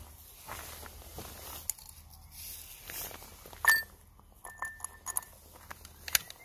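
Jacket rustling and a run of light clicks and knocks from handling an Umarex T4E HDS 68 shotgun. The sharpest click, with a short metallic ring, comes a little past halfway.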